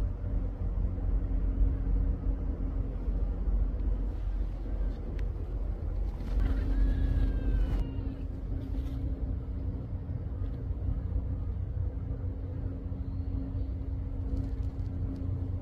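A car engine idling steadily with a low hum. About six seconds in, a brief high-pitched animal call with a slight falling pitch sounds over it.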